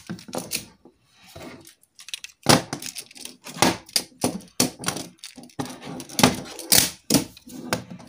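Plastic magnetic building tiles clacking and snapping together as they are joined by hand: irregular sharp clicks, with a pause of about a second and a half near the start, then a busy run of clicks.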